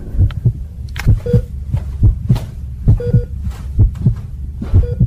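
Heartbeat sound effect: pairs of low thumps, lub-dub, repeating a little under once a second over a steady low drone.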